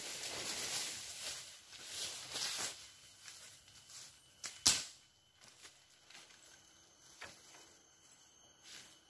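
Footsteps and rustling in dry leaf litter and undergrowth while a long pole is handled, then one sharp knock about four and a half seconds in, followed by a few faint clicks.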